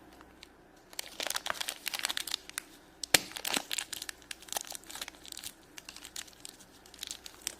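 Shopkins blind-bag packaging crinkling and tearing as it is handled and opened. Quick crackles begin about a second in and go on almost to the end, with one sharper snap about three seconds in.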